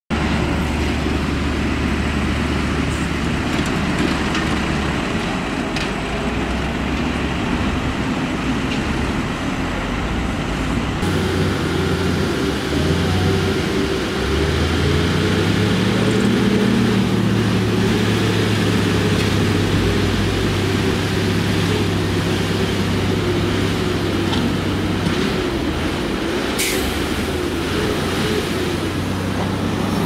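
Heavy diesel dump truck engines running. Around the middle one engine revs up and holds at a higher speed, driving the hydraulic hoist as the tipper bed rises to dump soil. A short sharp hiss near the end.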